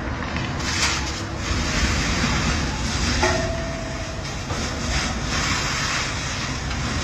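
Police water-cannon truck's jet spraying onto the pavement: a loud rushing hiss that surges and eases, over the low rumble of the truck's engine. A short steady tone sounds briefly a little past three seconds in.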